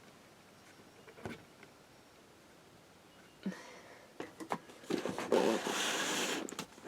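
Toy packaging being handled: a couple of faint knocks, then a louder rustling and scraping for the last two seconds or so.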